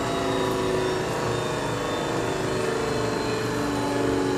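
Parker Majestic internal grinder running under its own power: the electric motors of the grinding spindle and workhead give a steady hum with several steady tones.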